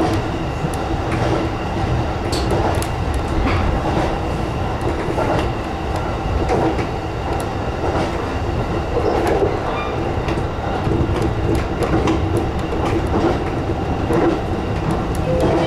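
JR East E233 series electric commuter train running at speed, heard from the driver's cab: a steady rumble and hum, with irregular clacks of the wheels over rail joints.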